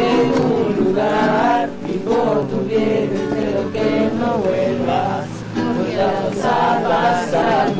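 Several voices singing together to a strummed acoustic guitar.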